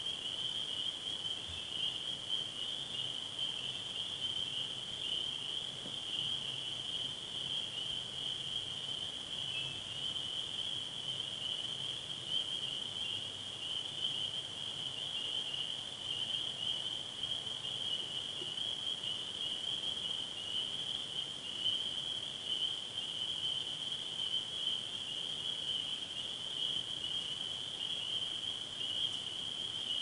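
Steady chorus of crickets: one continuous high trill that never pauses.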